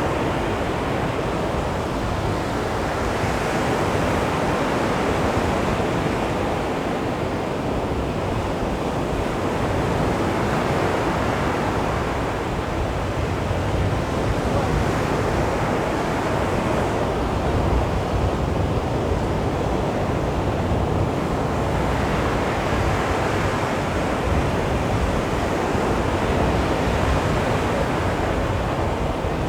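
Calm sea waves washing onto a beach: a steady surf rush that swells and eases every few seconds as each wave comes in.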